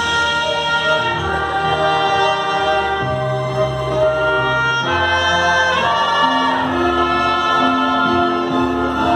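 A violin ensemble and a choir performing a slow piece together, moving from one long held chord to the next.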